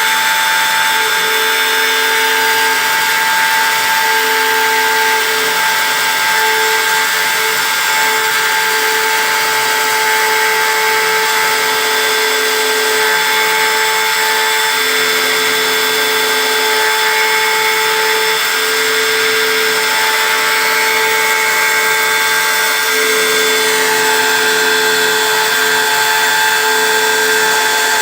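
CNC engraving machine running steadily: a continuous hiss with motor whines that switch on and off in stretches of a few seconds as the machine moves.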